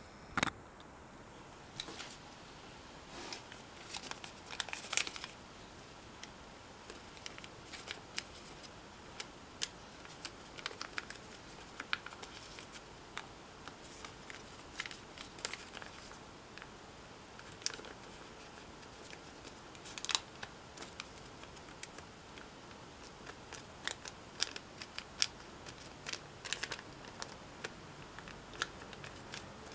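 Origami paper being handled, creased and glued by hand: scattered light crinkles, rustles and small clicks at irregular intervals.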